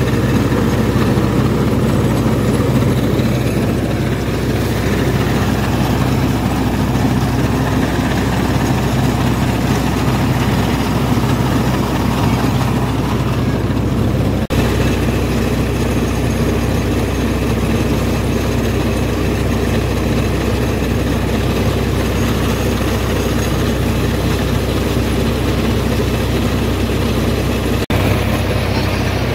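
Engine-driven paddy huller running steadily while husking rice: a low engine drone under the machine's continuous mechanical rattle.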